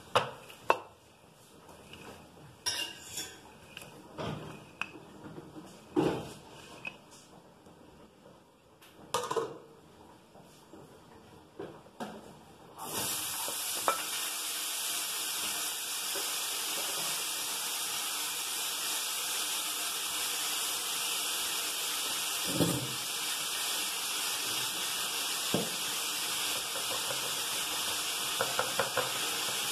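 Scattered light knocks and clinks of kitchen handling around a plastic board and dishes. Then, about 13 seconds in, a steady hiss starts suddenly and keeps going, with a couple more knocks over it.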